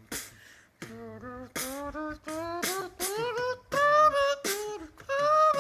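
A cappella vocal music: a voice sings a gliding melody, with short beatboxed hissing hits between the notes.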